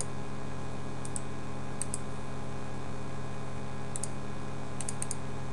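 Computer mouse clicking: quick double-clicks and single clicks at about five moments, while items in a Microsoft Access window are selected and opened. A steady low hum runs underneath.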